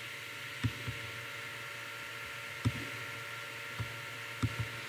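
Quiet room tone: a steady hum and hiss, with about six short, soft knocks or clicks scattered through it.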